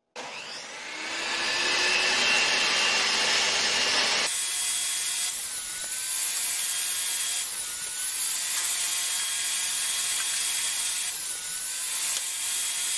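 Table saw running with a steady whine while plywood is fed through the blade on a crosscut sled. The sound builds over the first second or two and changes sharply about four seconds in.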